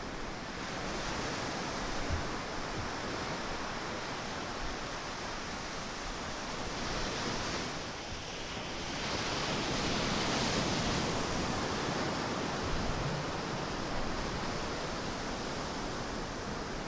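Ocean surf washing on a beach with wind: a steady rushing hiss that swells and fades, loudest around ten seconds in.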